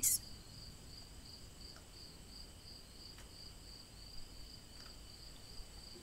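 Faint, steady cricket chirping: a high trill pulsing evenly, about five pulses a second, with a few soft ticks.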